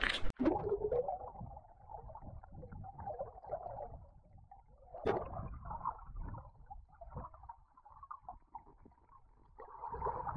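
Muffled gurgling and rushing of river water heard underwater through an action camera's housing, with a short knock about halfway through and a louder surge of water near the end.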